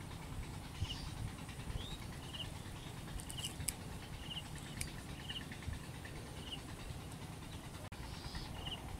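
Short high chirps from a small calling animal, repeating about once a second over a steady low rumble of outdoor background noise, with a few faint clicks in the middle.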